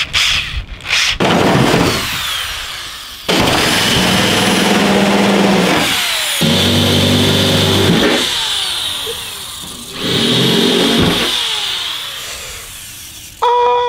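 Corded electric drill with a step drill bit boring holes through a car's sheet-metal hood, drilling the corner holes for hood-vent openings. Several drilling bursts a few seconds long, each starting loud and fading, with the motor whirring and the bit scraping through the metal. Near the end a steady droning tone suddenly cuts in.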